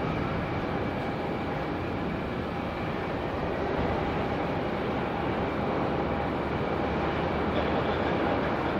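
Four jet engines of a Boeing 747-400 freighter running with a steady rumble and a faint whine, growing slowly louder as the takeoff gets under way, with wind on the microphone.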